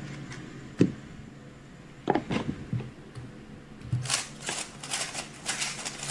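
A 3x3 speedcube being turned at speed: from about four seconds in, a fast run of plastic clicks. Before that come a sharp thud about a second in and a few knocks about two seconds in.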